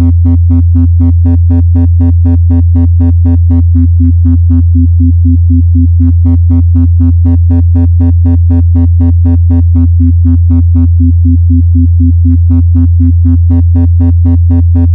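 4 Hz isochronic tone for theta-range brainwave entrainment: a synthesized tone pulsing on and off about four times a second over a steady low drone. Twice the pulses lose their brighter overtones for a second or two and turn duller before brightening again.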